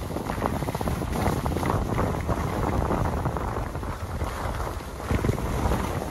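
Wind rushing over the microphone of a skier's camera during a downhill run, mixed with the hiss and scrape of skis over snow.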